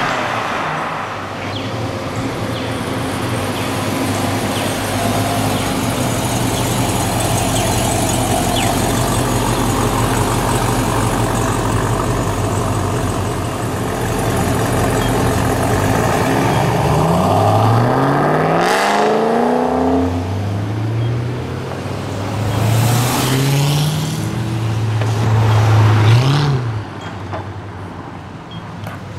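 Performance car engine running with a steady low drone, then revving hard and accelerating through several gears: the pitch climbs and drops back at each upshift before the sound fades.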